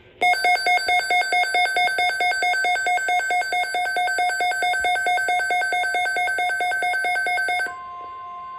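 Weather radio tornado-watch alert alarm: a loud, rapidly pulsing two-tone beep, several beeps a second. It stops abruptly near the end and gives way to a steady, quieter tone.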